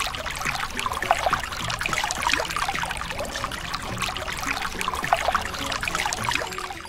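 Water running from a tap into a washtub, splashing steadily as plates are washed in it.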